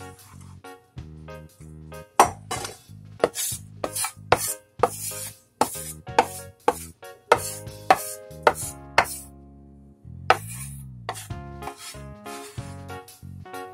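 Cleaver chopping shredded carrot on a wooden cutting board: a run of sharp knocks, about two a second, mostly between about two and nine seconds in, over background music.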